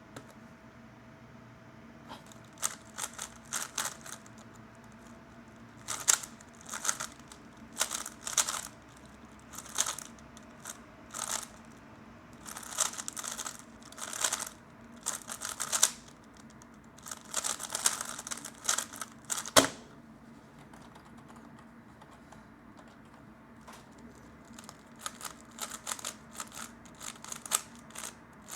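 3x3 speedcube being turned fast by hand: rapid bursts of plastic clicking and clacking, broken by short pauses. A single sharp knock about two-thirds through, then a few seconds of quieter turning before the fast clicking starts again.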